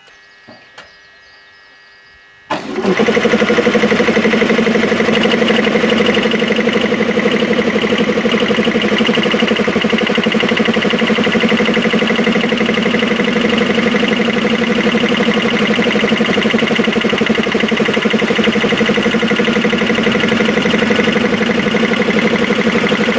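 About two and a half seconds in, an electric motor starts up and drives two belt-driven air compressors on a shared bed; they run on steadily and loudly with a fast, even pulsing, their belts freshly tightened.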